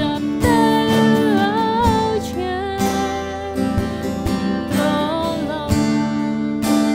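Acoustic band music: a singer's voice with vibrato over strummed acoustic guitar chords, with a cajon beat about once a second. The voice sings a line in the first two seconds and another around the middle, with guitar alone between.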